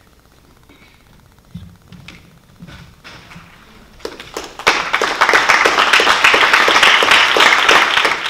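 Audience applauding: after a few quiet seconds, dense, loud clapping starts about halfway through, builds quickly and stops abruptly near the end.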